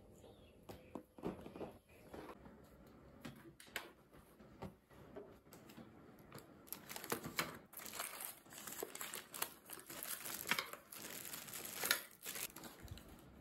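Plastic packaging crinkling and tearing as it is pulled off a cardboard box, an irregular run of crackles and rustles that grows denser and louder in the second half.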